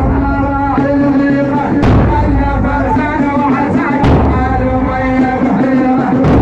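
Music with sustained layered tones and a deep booming hit about every two seconds.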